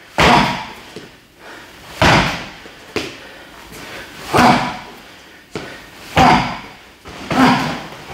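Kicks and punches landing on a free-standing heavy bag: five heavy thuds about one and a half to two seconds apart, with lighter knocks between.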